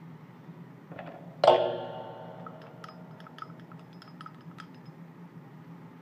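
A sharp metallic clink about a second and a half in that rings for about half a second, followed by a run of about ten light ticks, over a steady low hum.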